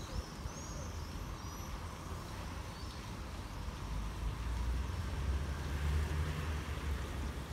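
Low rumble of road traffic, swelling for a few seconds past the middle as a vehicle passes, with a few faint bird chirps in the first second or so.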